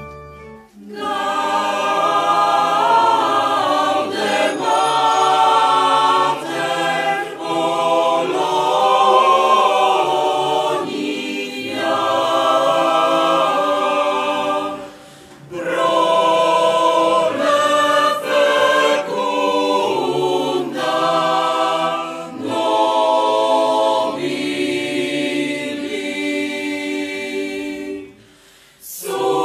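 Mixed choir of men and women singing a cappella in sustained phrases, with a short pause about halfway through and another near the end.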